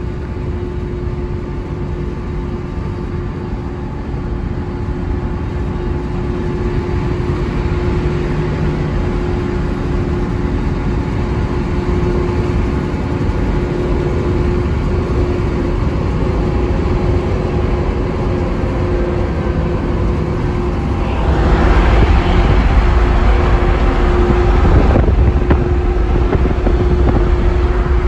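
Car driving at highway speed, heard from inside: a steady rumble of road and engine noise with a constant low hum. About three-quarters of the way through it grows louder and brighter, with more wind noise.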